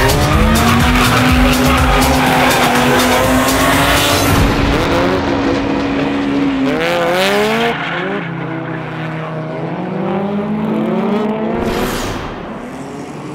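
Toyota AE86 Corolla drift car's engine held at high revs over squealing tyres. From about seven seconds in the engine note rises and falls repeatedly as the throttle is worked, a little quieter.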